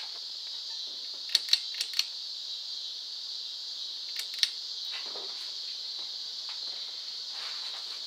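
Hampton Bay St Claire 52-inch ceiling fan running, with a steady high-pitched hiss. A quick run of sharp clicks comes about a second and a half in, and two more about four seconds in.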